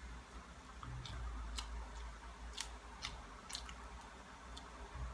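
Faint eating sounds: chewing, with a scattering of sharp little clicks and crackles as dried boneless danggit fish is pulled apart by hand and eaten.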